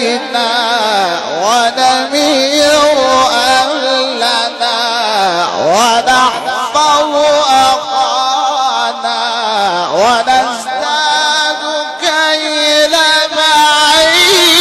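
A male Quran reciter drawing out a long, ornamented melodic passage in the Egyptian mujawwad style. His voice winds up and down with a quick tremble and swoops upward several times, without pausing.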